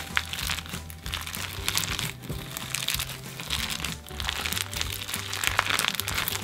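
Clear slime overloaded with gold and silver sequins being squeezed and kneaded by hand, giving off irregular crunching and crinkling crackles, over background music with a steady bass.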